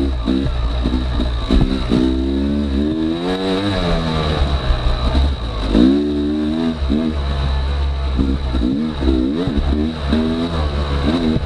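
Yamaha YZ250X two-stroke dirt bike engine revving up and down under the rider's throttle, its pitch rising and falling every second or so, with a longer climb about two seconds in and another about six seconds in.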